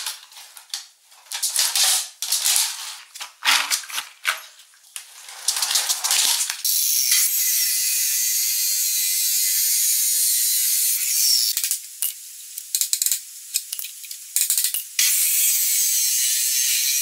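Abrasive chop saw's cut-off wheel grinding through steel angle iron, a steady high hiss that starts about six seconds in, breaks off for a few seconds with scattered clicks, then resumes near the end. Before the cutting there is a few seconds of irregular rattling and clatter.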